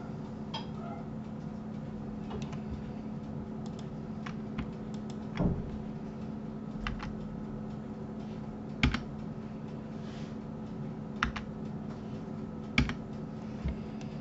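Computer keyboard and mouse clicks, about six sharp separate ones spread over the stretch, over a steady low electrical hum.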